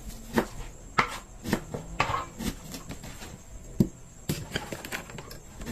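Scattered knocks and clinks of kitchen utensils and dishes being handled, at irregular intervals rather than a steady chopping rhythm.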